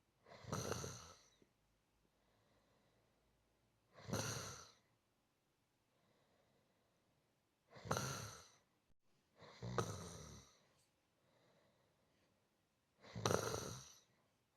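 A person snoring: five snores of about a second each, mostly three to four seconds apart, with two coming closer together past the middle. Fainter breaths come between them.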